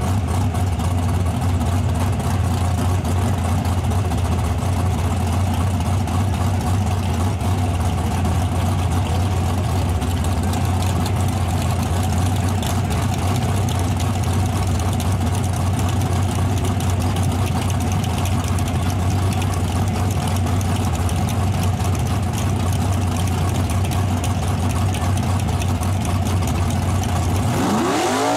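Modified drag-race truck engines idling loudly and steadily at the starting line, from a Chevrolet LUV and a Chevrolet S-10. Right at the end the revs begin to climb.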